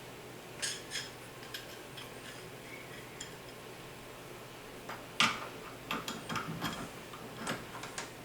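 Scattered small metal clicks and clinks as the lever and its collar are worked into place on a Lee Classic Turret reloading press, sharpest about five seconds in, with a quick cluster shortly after.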